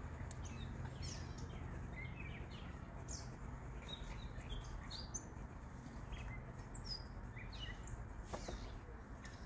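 Small birds chirping: short, high chirps scattered throughout, over a steady low background rumble.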